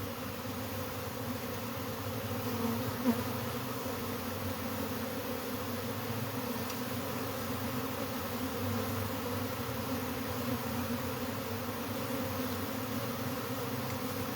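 A large mass of disturbed honeybees buzzing: a steady, dense hum of many wings, with a faint click about three seconds in.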